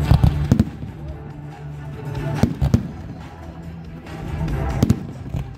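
Aerial fireworks shells bursting in a handful of sharp bangs, a cluster near the start, two around the middle and one or two near the end, over music that plays throughout.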